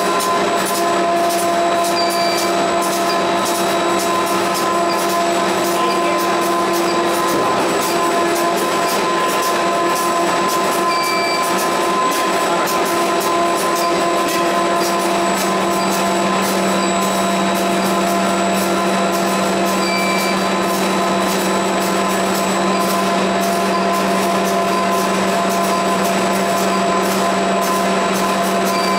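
YC1650-5C flexographic printing press running: a steady mechanical whir with several constant whining tones, and a short high chirp about every nine seconds.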